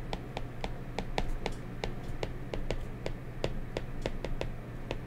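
Stylus tip tapping on an iPad's glass screen during handwriting: an irregular run of light clicks, a few per second.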